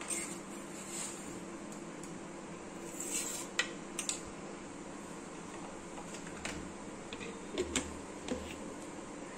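Sharp clicks and light knocks of a plastic mixer-grinder jar and its lid being handled, over a steady low hum. There are a few soft swishes in the first three seconds, and the clicks cluster from the middle to near the end.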